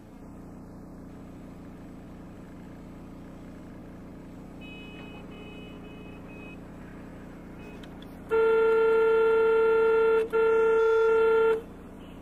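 Steady road and engine hum from a moving vehicle, then a vehicle horn honked in two long blasts about eight seconds in, separated by a brief break.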